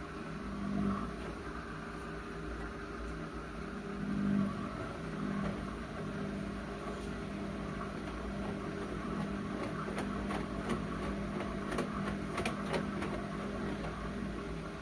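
Whirlpool washing machine running: a steady motor hum that swells briefly about a second in and again about four seconds in, with a run of light clicks near the end.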